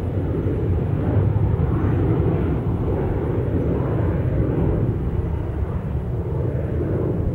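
Twin rear-mounted jet engines of a large Gulfstream business jet climbing out after takeoff: a loud, steady, deep rumble.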